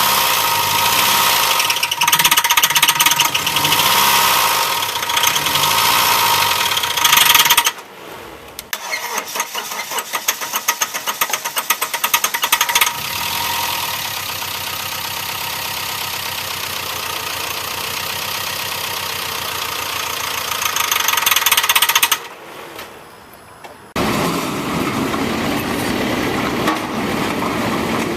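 1998 Dodge Neon's four-cylinder engine being run with its oil drained to destroy it: it runs hard with a knocking clatter, then cuts out about eight seconds in. It is cranked and restarts, runs steadily and climbs, then stops abruptly a little past twenty seconds. A different steady noise follows near the end.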